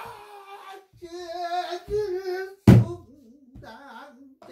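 Pansori singing: a voice holding long notes with a deep, wavering vibrato, accompanied by a pansori buk barrel drum. The drum is struck a few times with a stick and palm, the loudest stroke a little past the middle.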